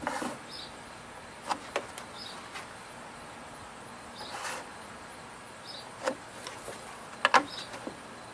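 Wooden balusters being handled and set against a deck's top rail: a few sharp wooden knocks, the loudest pair near the end, and two brief scraping rubs. A faint high chirp repeats about every second and a half.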